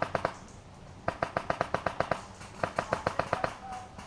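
HPA airsoft rifle, a Classic Army G36 with a Wolverine Inferno engine, firing rapid full-auto bursts: two strings of about a second each, at roughly ten sharp clicks a second.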